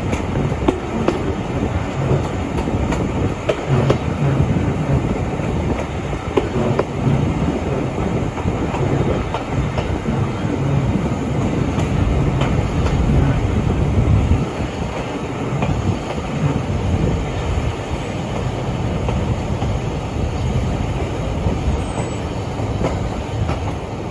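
Diesel-hauled heritage train running along the track, with the steady noise of wheels on rails. It is louder in the first half and eases off a little about two-thirds of the way through.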